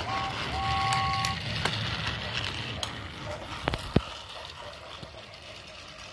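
Battery-powered Talking James toy engine starting off: a short electronic two-note whistle, then its motor runs with a steady whir and rattle as it rolls along plastic track, with a few sharp clicks along the way, gradually fading as it moves off.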